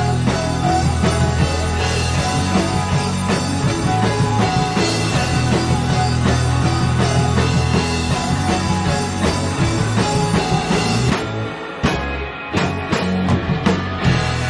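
A rock band playing live in a small rehearsal room: electric guitars, keyboard and a drum kit with cymbals. About eleven seconds in the full sound drops away to a few separate hits and chords.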